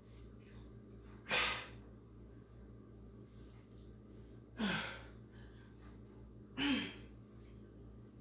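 A woman's forceful exhalations with exertion during exercise reps: three sharp breaths out, two to three seconds apart, the last two ending in a short falling grunt.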